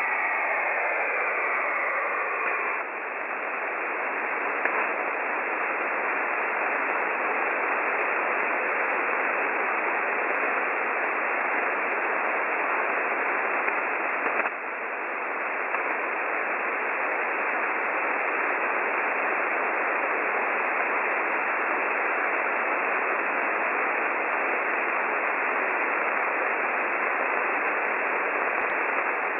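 Shortwave radio receiver tuned to 4625 kHz giving a steady hiss of static, with a few faint gliding whistles in the first three seconds; no distinct buzzer tone stands out above the noise.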